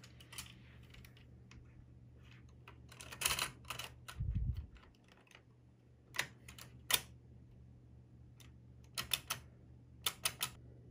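Sharp metal and plastic clicks and clacks from opening a server's LGA2011-3 CPU socket: the wire retention levers unhooking and the hinged load plate being lifted. The clicks come in small clusters, with a short low thump about four seconds in.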